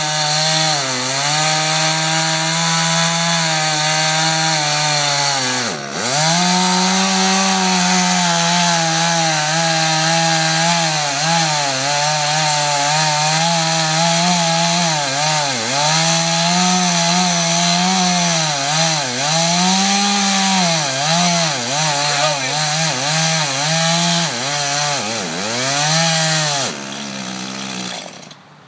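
Two-stroke gasoline chainsaw cutting into the trunk of a standing dead tree at full throttle. Its engine speed sags and recovers again and again as the chain bites into the wood, with one deep dip about six seconds in. Near the end it drops to a lower speed and then cuts off.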